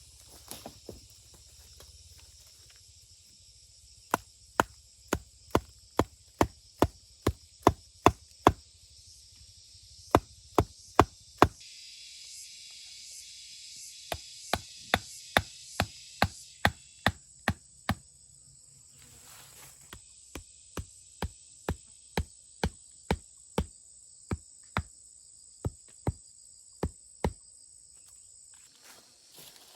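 Repeated sharp chopping strokes, about two a second, in several runs of a few seconds each, with short pauses between the runs. Insects buzz steadily at a high pitch underneath, growing louder for a few seconds in the middle.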